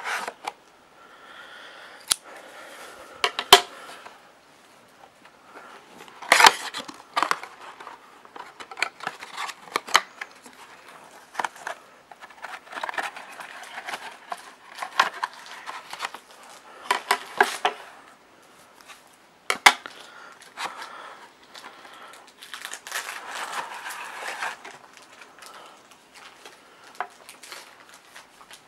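Scissors cutting the shrink wrap off a cardboard card box, then crinkling plastic wrap and the box's cardboard flaps being opened by hand, with a plastic card slab handled. Scattered sharp clicks and knocks run through the rustling.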